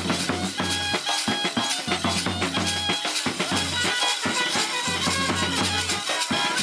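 Brass band music: trumpets playing a lively tune over drums with a steady beat.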